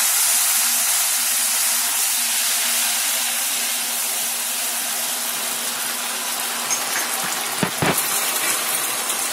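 Mustard oil with water and ginger paste sizzling and hissing steadily in a wok as it is stirred, slowly quietening. A few short knocks come about three-quarters of the way through.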